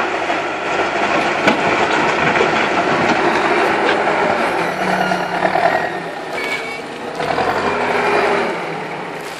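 JCB backhoe loader's diesel engine working under load as its front loader bucket pushes into a pile of soil and lifts a full bucket of earth, easing off a little near the end.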